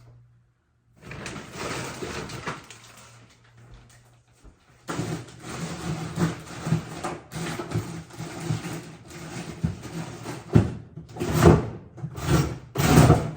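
Plastic food packaging rustling and crinkling as groceries are handled and packed into a freezer, with a pause in the middle and several louder bursts near the end.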